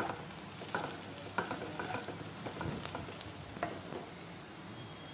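Sliced onions frying in mustard oil in a nonstick kadhai with a steady sizzle, while a plastic slotted spatula stirs in turmeric powder with several short scrapes against the pan.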